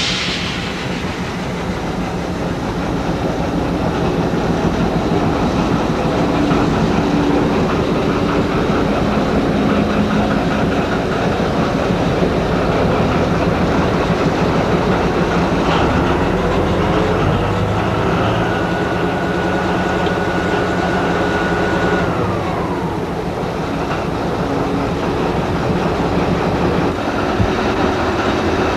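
MÁV M43 diesel shunting locomotive running close by, a steady engine drone with rail noise. About two-thirds through, a high steady whine holds for a few seconds and then glides down.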